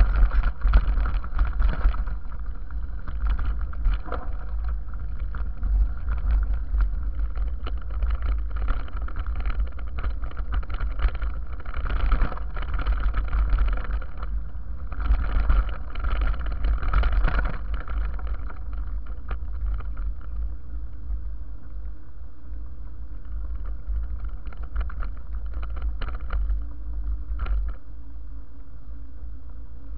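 Wind rumble on the microphone and the rattling and knocking of a mountain bike and its camera over a rough, rocky trail. The knocks are frequent at first, then ease into a smoother, steadier ride noise over the second half.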